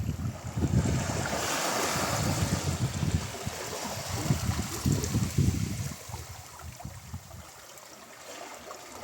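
Ocean surf breaking on the shore: a wash of hiss swells about a second in and slowly eases off, quieter near the end, with a low, gusty rumble of wind on the microphone underneath.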